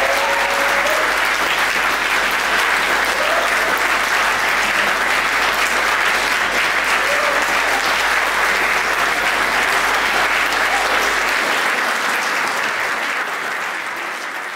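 Audience applauding: steady, dense clapping that begins to die away near the end.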